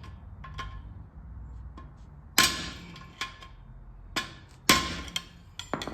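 Hammer driving a steel punch against a pinion bearing race in a Sterling 10.5 axle housing: about seven irregular metallic strikes with a short ring after each, two of them much harder.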